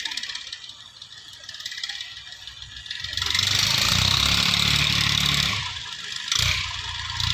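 Massey Ferguson 240 tractor's diesel engine working while plowing, getting much louder about three seconds in, easing off a couple of seconds later, then rising again near the end.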